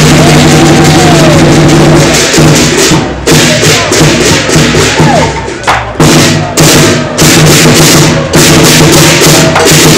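Lion dance percussion: a large drum with clashing cymbals and gongs, played loud and fast. About two seconds in, the steady stream of strokes breaks into a stop-start rhythm with short pauses.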